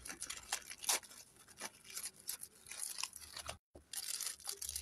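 Paper and card packaging rustling and crinkling as wallets are handled in their boxes: faint, irregular crackles, with the sound cutting out completely for a moment past the middle.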